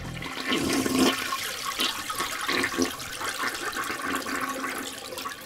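Toilet flushing, a rush of water that runs on throughout.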